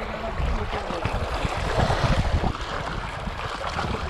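Wind buffeting the microphone over waves washing against the rocks of a sea breakwater, swelling briefly about two seconds in.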